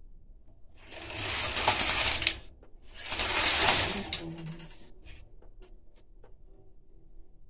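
Carriage of a Panda domestic knitting machine pushed across the needle bed twice, back and then forth, knitting two rows of tuck-stitch pattern. Each pass is a dense clatter lasting about a second and a half, with a short gap between them, followed by a few faint clicks.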